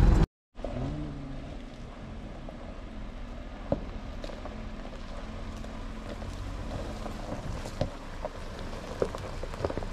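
Mahindra Thar 2021 SUV creeping down a dirt track: a steady low engine hum with scattered small crunches and clicks from the tyres on gravel and dry leaves.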